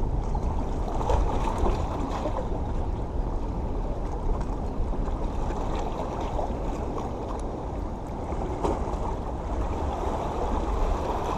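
Seawater washing and sloshing against the rocks of a jetty, over a steady low rumble of wind on the microphone.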